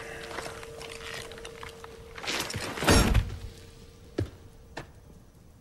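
A heavy thud about three seconds in as a body collapses onto a dirt floor, over a faint steady tone. Two small sharp knocks follow.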